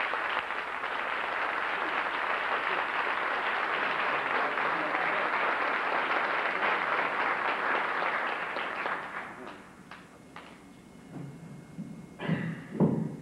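Audience applauding, dying away about nine seconds in. Near the end come a few knocks and a sharp thump as the podium microphone is handled.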